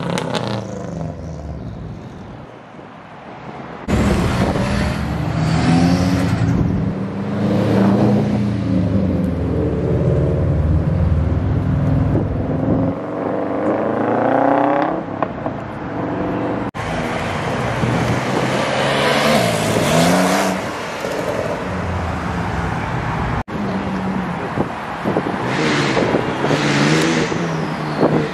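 Several performance cars leaving one after another, their engines revving up and accelerating hard as they pass, in separate clips joined by abrupt cuts. Near the end a McLaren 675LT's twin-turbo V8 revs as it comes up the road.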